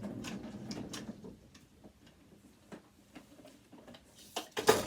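Small clicks and taps of metal sewing-machine parts and tools being handled. They are frequent at first, then sparse and faint, with a louder cluster of knocks near the end.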